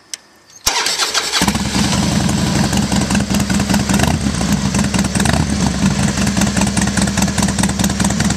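A 2003 Harley-Davidson Fat Boy's Twin Cam 88B V-twin, breathing through a Kerker 2-into-1 exhaust, is started: the electric starter cranks briefly under a second in, the engine catches and settles into a steady idle with a nice deep sound.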